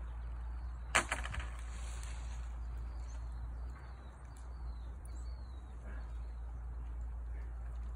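Outdoor ambience with a steady low wind rumble and a few faint, short bird chirps. A sharp clack comes about a second in, followed by a couple of quick lighter clicks.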